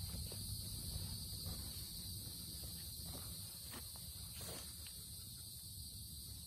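Steady, high-pitched chorus of insects, unbroken throughout, over a low rumble with a few faint knocks.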